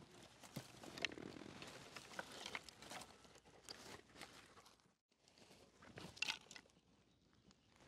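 Faint, scattered crackles and clicks of dry sticks and twigs being picked up from grass, with soft rustling.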